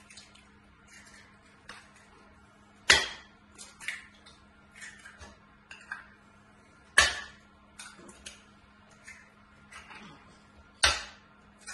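Eggs being cracked one at a time against the rim of a jug: three sharp cracks about four seconds apart, with fainter clicks and taps of shell between them.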